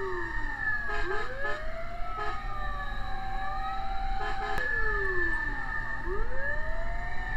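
Several fire truck sirens wailing at once, their pitches rising and falling slowly out of step with one another.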